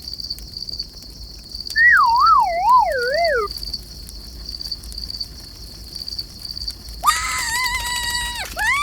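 Crickets chirping steadily in an even high pulse. About two seconds in, a wavering tone slides downward for about a second and a half, and near the end a long high tone is held steady.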